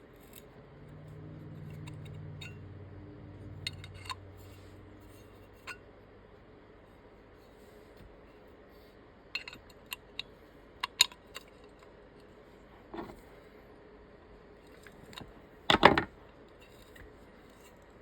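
Scattered small metal clicks and taps of hand tools and parts being handled, with a heavier knock about 16 seconds in. A low hum sounds for the first few seconds.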